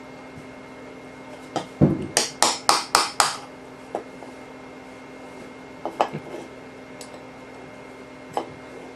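Hammer tapping a steel punch to drive old rivets out of an AK trunnion: a quick run of about five sharp metallic taps about two seconds in, then a few scattered single taps.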